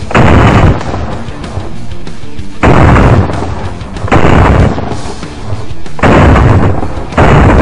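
Gunfire from an AR-style rifle: five very loud strings of shots, each about half a second long, coming every second or two, over background music.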